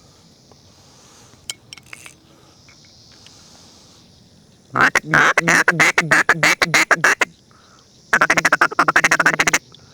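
A duck quacking in two rapid runs of calls, the first starting about halfway through and the second, faster one near the end.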